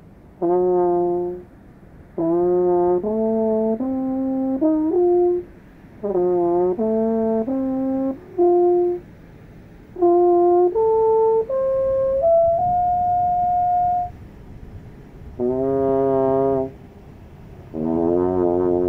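3D-printed alphorn played as a melody of separate held notes in short phrases with brief pauses between them, stepping between the horn's natural notes. Around the middle one note is held for over a second, and the last phrase near the end wavers in pitch.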